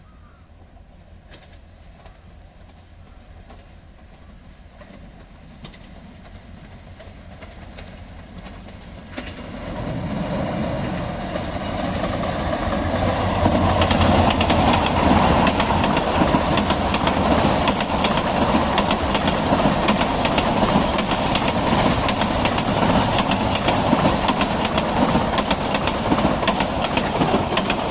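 A train approaching, growing louder from about ten seconds in, then running close by with a steady rumble and a rapid clatter of wheels over the rail joints.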